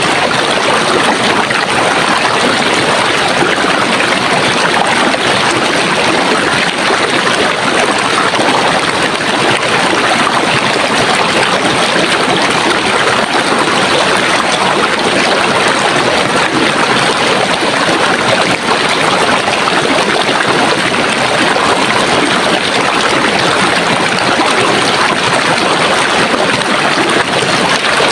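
Running water flowing steadily, a continuous even rush with no breaks or changes.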